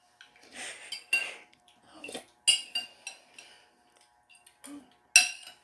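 Metal spoon clinking and scraping against a ceramic soup bowl: a run of sharp clinks at uneven intervals, the loudest about five seconds in.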